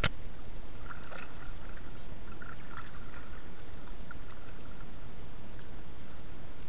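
Steady muffled rush of water heard with the microphone underwater, as from a camera in a waterproof housing. There is a sharp knock at the very start, and a few faint short squeaks are scattered through it.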